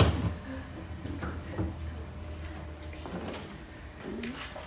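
Wooden animal transport crate knocked and bumped as the ratchet strap around it is released and pulled free: a sharp knock at the start, then a few softer thumps and light taps, over a low steady hum.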